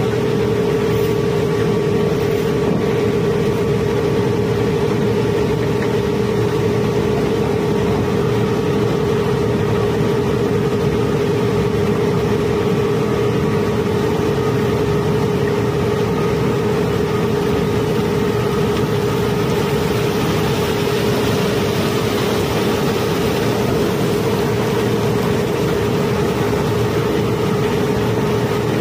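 Barge-unloading conveyor running steadily under a load of cobblestones, a constant machine drone with a steady hum that never changes.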